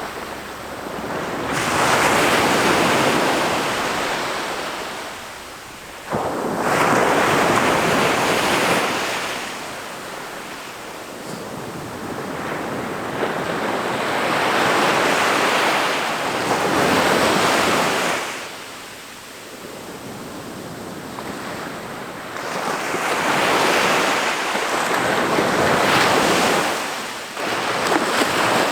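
Ocean surf breaking on a sandy beach: waves crash and wash up every several seconds, each surge building, peaking and draining away before the next.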